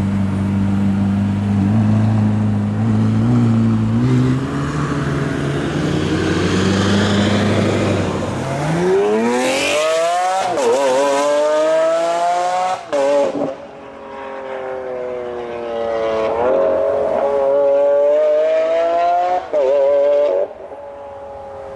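A performance car engine, first a steady low drone, then accelerating hard from about eight seconds in. Its pitch climbs, breaks off briefly at each of several upshifts, and climbs again.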